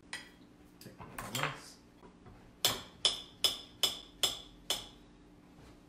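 A metal knife strikes a ceramic plate six times in an even rhythm, a little over two strikes a second, each a sharp ringing clink, as a crepe is cut on the plate. Softer cutlery clatter and scraping come in the first second and a half.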